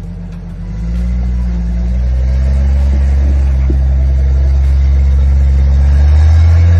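A Jeep's engine running steadily, getting louder about a second in and then holding its pitch.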